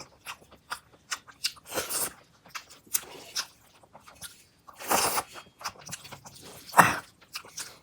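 Close-miked eating: crunchy bites and chewing, with many sharp crackling clicks and a few louder crunches about two, five and seven seconds in.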